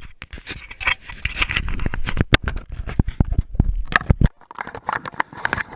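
Handling noise on a GoPro's own microphone as its chest-mount harness is strapped on: straps and clothing rubbing and scraping against the camera housing, with many sharp clicks and knocks. A low rumble under it stops about four seconds in.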